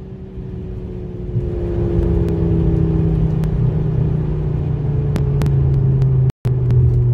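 Inside the cabin of a Mk2 Ford Focus RS, its 2.5-litre turbocharged five-cylinder engine drones steadily as the car slows from about 110 mph, with road and wind noise underneath. The drone sinks a little in pitch. The sound cuts out for an instant near the end.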